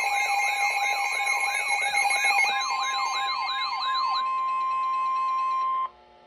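Emergency alert attention signal: steady alert tones with a fast wailing siren sweep laid over them, about three sweeps a second. The sweep stops about four seconds in, and the steady tone alone carries on until it cuts off suddenly near the end.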